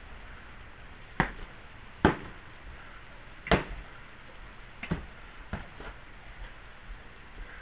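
LARP weapons striking in sparring: five sharp hits at uneven intervals, the first three the loudest.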